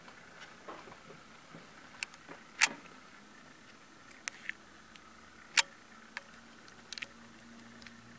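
Sharp clicks at irregular intervals over a faint steady hiss, the two loudest about two and a half and five and a half seconds in.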